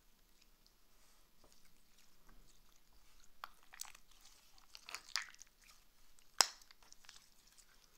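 Hands squishing and pulling slime, making faint sticky crackles and clicks, with one sharp click about six and a half seconds in.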